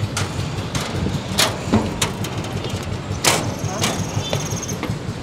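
A bangka's small engine idling with a steady low rumble, a few sharp knocks over it.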